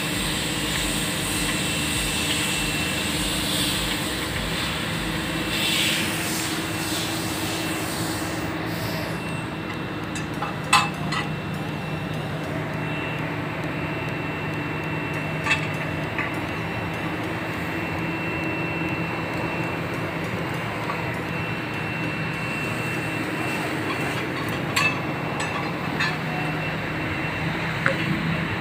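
Steady low mechanical hum of running machinery with a faint high whine, broken by a few sharp metallic clicks, the loudest about eleven seconds in.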